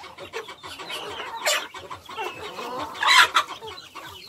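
Domestic chickens clucking as the flock feeds on scattered grain, with two louder calls about one and a half and three seconds in.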